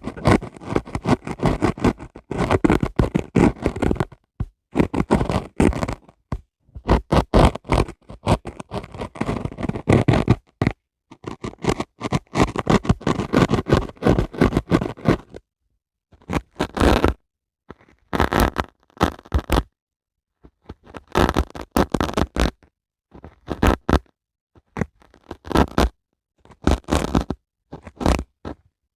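Dry sponge scraped by hand, a dense crackly scraping for about the first fifteen seconds, then short separate strokes of about a second each with brief pauses between them.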